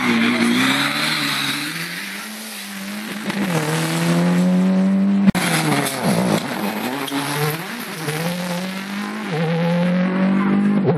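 Rally car engines at full throttle, accelerating out of a hairpin, with the pitch climbing and dropping back at each gear change. About five seconds in there is an abrupt cut, and a second car is then heard pulling away.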